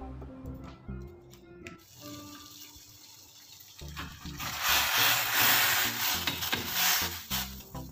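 Cubed raw potatoes tipped from a plastic colander into a pot of boiling water: a loud splashing rush of water for about three seconds, starting about four seconds in. Background music plays throughout.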